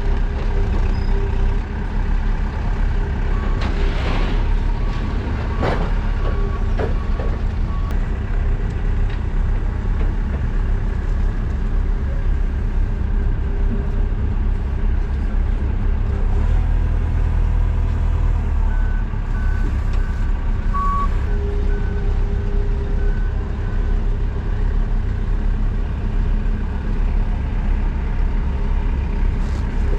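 Delivery truck engine running steadily, with a backup alarm giving a run of short, evenly spaced beeps about two thirds of the way through.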